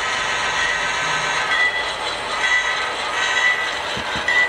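Model diesel locomotive running along layout track toward the listener: a steady mechanical running noise with a high whine that comes and goes.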